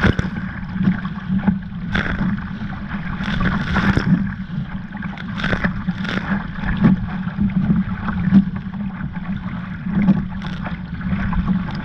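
Hobie Adventure Island sail kayak running through choppy surf: steady wind rumble on the microphone with water rushing past the hull and several sharp splashes at irregular moments as waves hit the boat.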